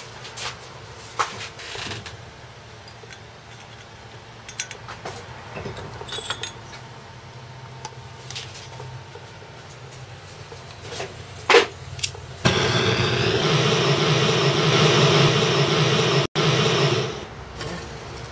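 Scattered clicks and clinks of small metal tools handled on a workbench. Then, about twelve seconds in, a jeweller's hose-fed gas torch comes on suddenly with a loud, steady roar, aimed at a melting dish on the soldering block. It breaks off for an instant partway through and dies away after about five seconds.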